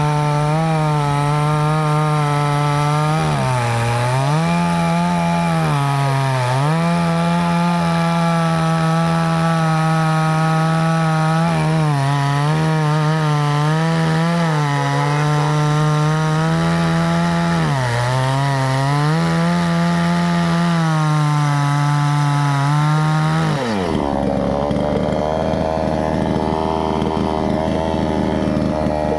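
Chainsaw engine running at high revs while cutting wood, its pitch sagging briefly four times. About 24 seconds in it drops back to a low idle.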